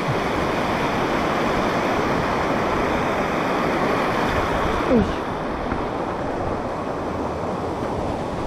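Mountain stream rushing over boulders: a steady, loud rush of water. About five seconds in there is a brief sound that falls in pitch, and after it the rush is a little quieter.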